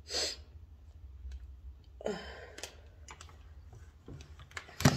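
Close-up handling noises as over-ear headphones are taken off in front of the microphone: brief rustles and a few light clicks, then a louder thump near the end, over a low steady hum.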